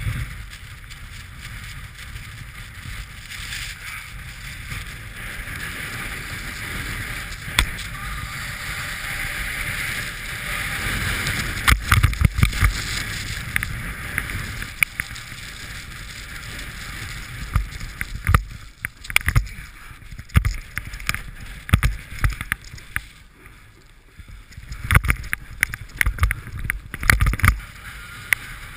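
Snowboard sliding down a wind-packed slope, the board hissing and scraping over the snow, with low wind rumble on the camera microphone. Partway through and again later come runs of sharp knocks and thumps as the board chatters over hard, bumpy snow.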